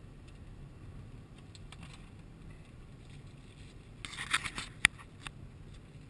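Steady low road and engine noise inside a moving car's cabin, with a short burst of rattling and sharp clicks about four seconds in.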